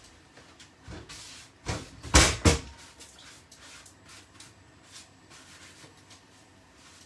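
Kitchen knocks and clatter: a short rustle about a second in, then three sharp knocks in quick succession, the loudest about two seconds in.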